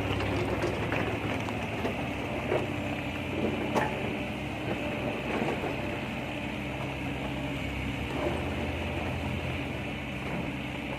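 Heavy diesel engine running steadily at low revs, with a few short metallic knocks.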